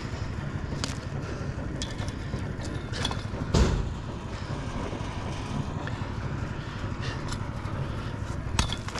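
Chunks of weak, crumbling concrete footing knocking and clattering as they are broken apart by hand and dropped onto rocky dirt. There are a few sharp knocks, the loudest a thud about three and a half seconds in and another near the end, over a steady low rumble.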